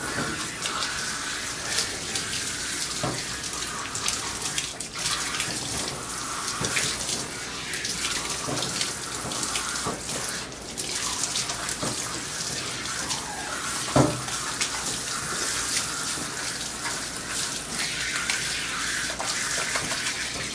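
Water spraying from a hand-held bath sprayer onto a wet dog's coat and splashing into the tub, a steady hiss while the shampoo is rinsed out. A brief knock about 14 seconds in.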